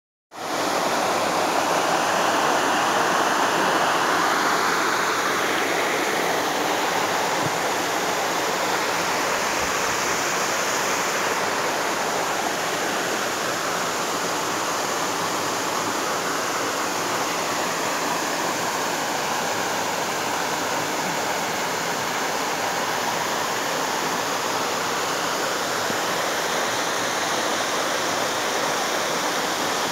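Small waterfall and stream water rushing steadily over rocks into a clear pool, its tone shifting slowly.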